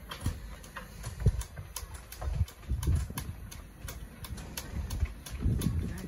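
Irregular hollow knocks and thumps of people working on a sailboat's deck and at the foot of its mast, with light sharp clicks from the rigging and lines.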